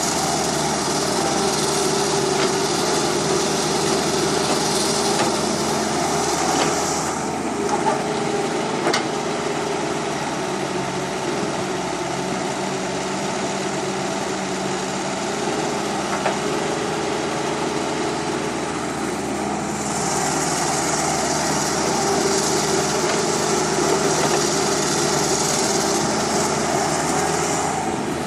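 Toy remote-control construction vehicles running: small electric motors and gearboxes whining steadily. A higher whine drops away about seven seconds in and returns near the end, and a few sharp clicks come in between.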